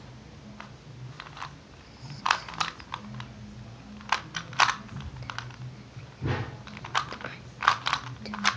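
Plastic clicks and clacks of a Rubik's cube being twisted by hand, coming in irregular clusters of quick turns, over a faint low steady hum.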